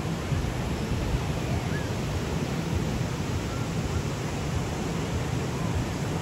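Small waves breaking on a sandy beach: a steady wash of surf, with a low rumble of wind on the microphone.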